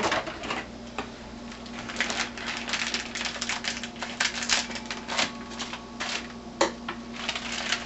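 Scissors snipping open a plastic spaghetti packet, with the wrapper crinkling as it is handled: a run of irregular sharp clicks and rustles over a steady low hum.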